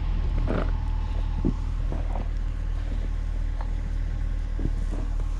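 A steady low rumble, with a few faint short scrapes or knocks over it.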